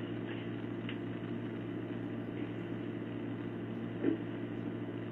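Steady low hum of room tone in a recorded interview room, with a faint hiss over it. A brief soft sound comes about four seconds in.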